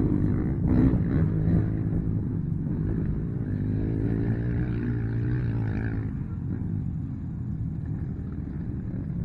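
Racing quad ATV engines revving, their pitch rising and falling with the throttle, fading gradually as the quads move away down the dirt track.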